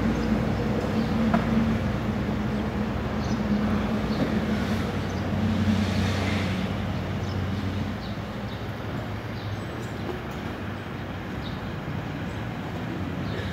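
Steady low-pitched hum of vehicle engines and traffic, with a brief swell of hiss about six seconds in. The hum eases somewhat after about eight seconds.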